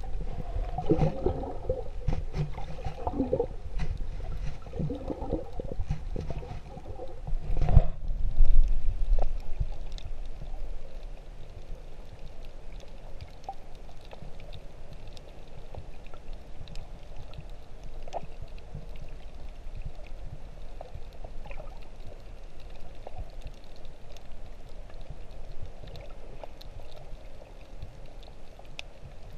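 Underwater sound from a submerged GoPro while snorkeling: bubbling, gurgling water with a low rumble for about the first eight seconds, ending in a louder surge. Then comes a quieter, steady wash with faint scattered crackles.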